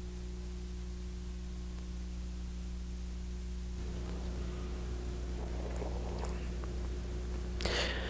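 Steady low electrical hum on the recording, with faint rustling and a few light clicks starting about halfway through.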